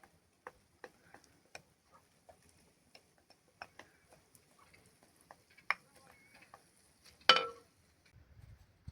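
Irregular light clicks and taps of cooking work with utensils, with one much louder ringing metallic clank about seven seconds in.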